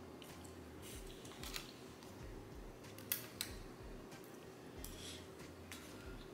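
Faint clicks and scrapes of a fork working food in an aluminium foil takeout tray, with two sharper clicks about three seconds in.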